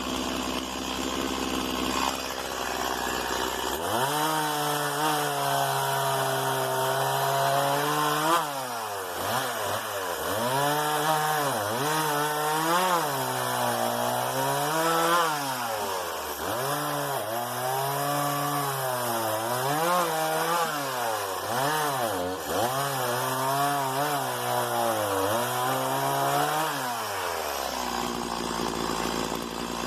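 Stihl MS 170 small two-stroke chainsaw idling, then revved up about four seconds in and cutting wood, its engine pitch dipping and recovering again and again as the chain is loaded in the cut. Near the end it drops back to idle.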